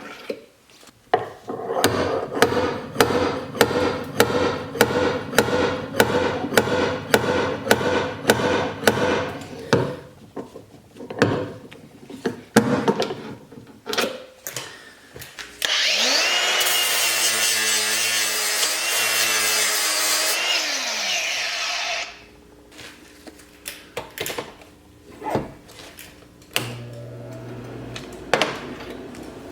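Rhythmic scraping strokes at about two a second for several seconds, then a power tool runs for about six seconds with a high whine and winds down as it stops.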